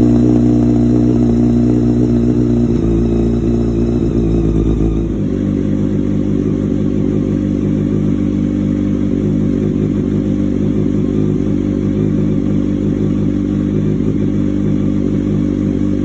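A 2006 Honda CBR600 F4i's inline-four engine idling loudly just after a cold start; about five seconds in the idle drops to a slightly lower, steadier note.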